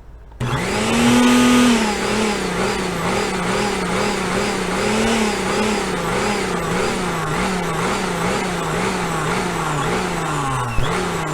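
Chainsaw sound effect revving up and down over and over in a steady rhythm. It starts abruptly about half a second in and is loudest for the first second or so.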